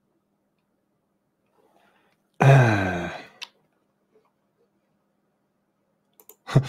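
A man's single voiced sigh, falling in pitch and lasting under a second, about two and a half seconds in, followed by a small click. Otherwise near silence with a faint low hum.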